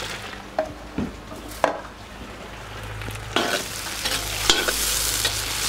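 Halved brown mushrooms sizzling in hot oil in a cast-iron kazan, with a few metal knocks. From about three and a half seconds in, a metal spatula scrapes and stirs them through the pan and the sizzle gets louder.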